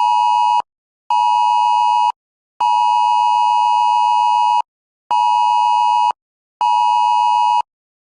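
Emergency Alert System alert tone beeping in a loud, even on-off pattern: steady beeps about a second long with half-second gaps, one of them twice as long, stopping shortly before the end.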